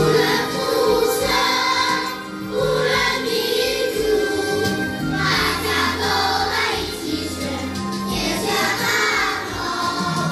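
Children's choir singing with instrumental accompaniment, steady bass notes under the voices.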